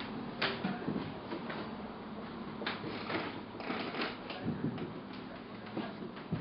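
Scattered small clicks and rustles of hands handling things at close range, over a low steady hum.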